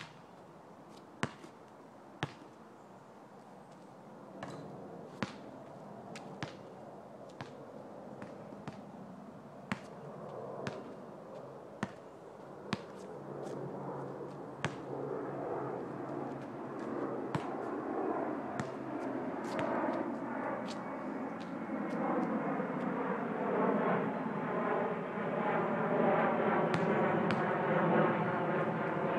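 Sharp slaps of a basketball bouncing on an asphalt court, scattered every second or two. A rushing rumble builds from about halfway through and becomes the loudest sound near the end.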